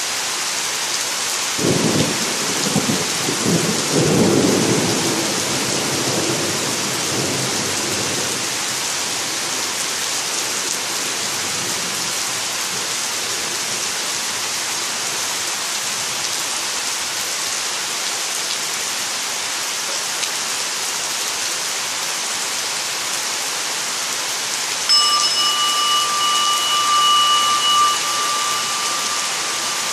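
Steady heavy rain with thunder rumbling a couple of seconds in, dying away over several seconds. Near the end a singing bowl rings with several steady overtones over the rain.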